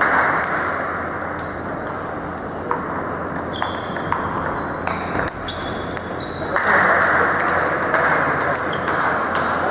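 Table tennis rally: the celluloid ball clicks sharply off paddles and table, over and over, with a few short high squeaks in between. A steady rushing background noise runs underneath and grows louder after the rally ends.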